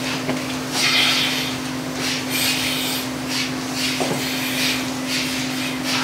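Repeated scraping of a long-handled tool along the concrete barn gutter, a stroke about every second, over the steady hum of the milking system's vacuum pump.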